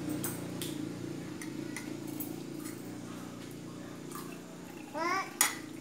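Drinking water poured from a plastic pitcher into a metal cup, with light clicks and a sharp clink of the cup near the end.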